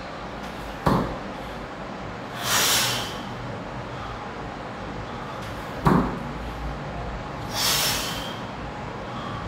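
One-arm kettlebell jerk reps with a 24 kg kettlebell: a sharp thump about a second in and again about six seconds in. Each thump is followed about a second and a half later by a forceful hissing exhale.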